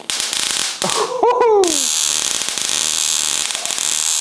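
High-voltage arc from a six-stage half-wave voltage multiplier, jumping about 2.5 inches to a probe: a continuous hissing crackle that starts suddenly. A short falling vocal exclamation cuts in about a second in.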